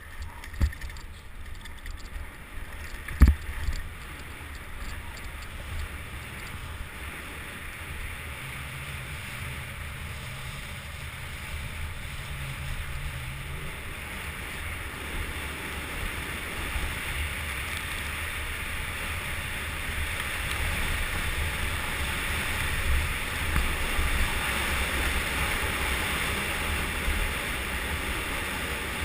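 Wind rushing over an on-bike microphone and the rumble and rattle of a mountain bike running downhill over rough ground, gradually growing louder. Two sharp knocks come about half a second and about three seconds in.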